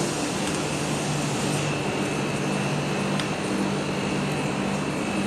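Steady mechanical hum with a faint high whine over an even hiss, the kind a building's air conditioning or ventilation makes.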